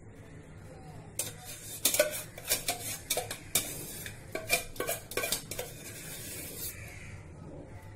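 Steel spoon clinking and scraping against a pan while stirring melting ghee: a quick run of sharp clinks from about a second in until about six seconds, over a faint steady low hum.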